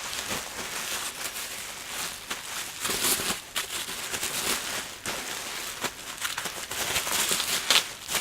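Plastic bubble wrap and packaging being handled while a parcel is unpacked, crinkling and rustling with irregular crackles.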